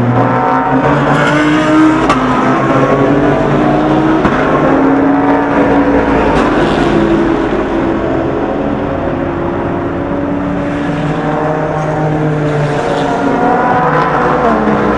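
Several SUPER GT race cars braking hard into a chicane and accelerating out, their engine notes overlapping, some dropping in pitch as they slow and downshift and others rising as they power away.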